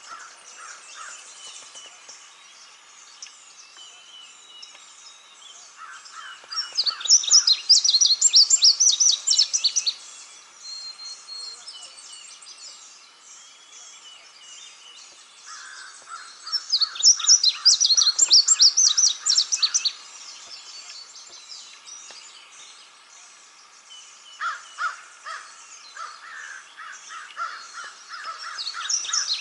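Wild birds calling and singing in woodland. Three loud spells of rapid, repeated calls stand out, each lasting a few seconds and coming about nine seconds apart.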